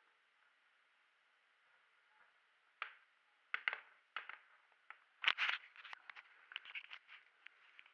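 A scattered series of short, sharp clicks and knocks, starting about three seconds in, with the loudest cluster a little past five seconds in followed by a run of lighter ticks.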